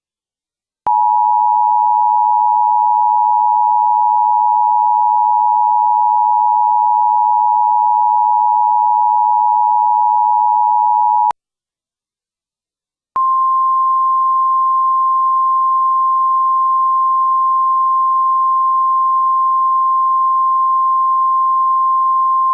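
Emergency Alert System attention signal: a steady two-tone alarm for about ten seconds. After a short silence comes a single, slightly higher steady tone, the weather-radio warning alarm, for about ten seconds. The tones announce a high wind warning.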